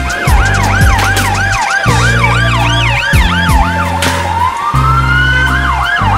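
Police siren on yelp, sweeping up and down nearly four times a second. Around four seconds in it changes to one slower rising wail, then goes back to yelp. Background music with a steady beat plays underneath.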